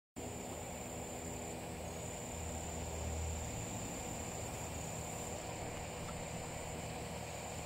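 Summer yard ambience: insects keep up a steady high-pitched drone, with a low steady hum underneath.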